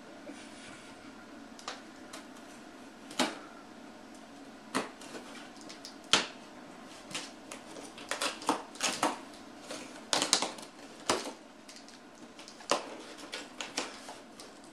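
Cardboard monitor box being opened by hand: packing tape cut and the flaps worked open, giving scattered sharp clicks, snaps and scrapes of cardboard and tape. They come more often in the second half.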